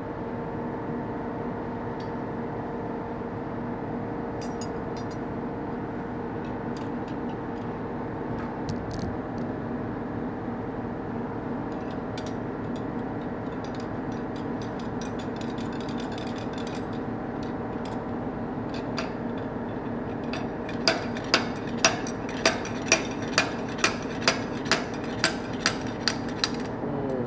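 Metal tools working on the engine's timing chain guide pins: scattered light clicks, then a regular run of sharp metal-on-metal knocks, about two a second, for several seconds near the end, over a steady workshop hum.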